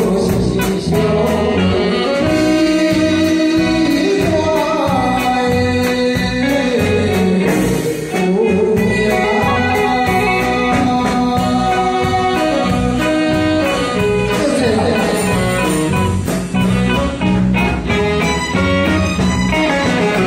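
A man singing into a microphone over a live band of electronic keyboard and drum kit, with a steady beat. The voice drops out near the end while the band plays on.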